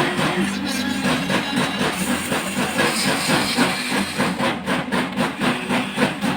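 Huina 1593 RC excavator's small electric motors and plastic gearboxes whining as it works, the pitch stepping down about half a second in. From about two and a half seconds on a fast, even clatter of about four to five clicks a second joins in.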